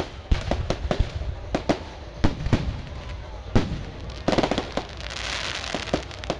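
Aerial firework shells bursting in quick, irregular succession, many sharp bangs a fraction of a second apart. About five seconds in, a denser hissing stretch lasts about a second.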